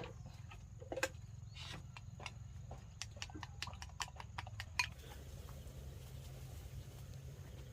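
Irregular light clicks and taps over a steady low hum; the tapping stops about five seconds in.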